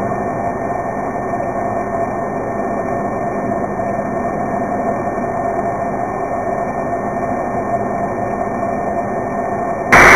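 Spitfire's V12 piston engine droning steadily in flight, heard from the cockpit. Near the end the sound turns suddenly much louder and fuller.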